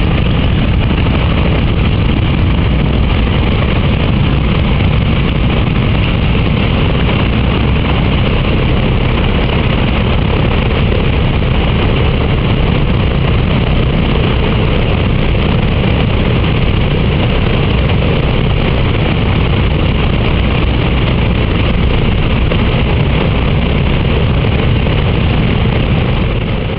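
Boeing B-29 Superfortress's Wright R-3350 eighteen-cylinder radial engines running steadily on the ground after start-up, a loud, even, deep drone with the propellers turning.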